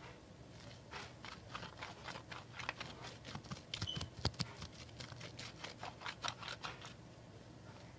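White slime being poked and pressed by hand, giving a run of small sticky crackles and pops, several a second, densest and loudest about halfway through and stopping about a second before the end.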